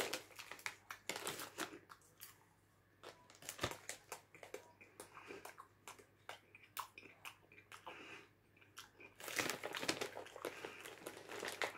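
Popcorn being chewed close to the microphone: a run of small, irregular crunches, thickening into a denser, louder stretch of crunching near the end.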